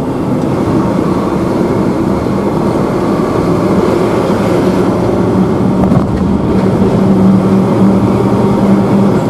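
Cab noise of a Renault Premium 450 lorry driving on a village road: a steady diesel engine drone with road noise, its hum growing a little stronger in the second half.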